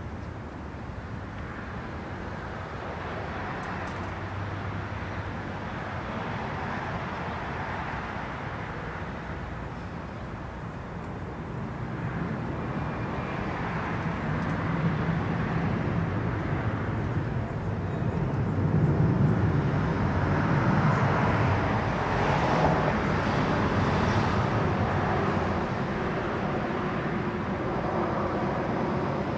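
Outdoor background noise with a distant engine rumble that swells from about a third of the way in and stays louder through the rest.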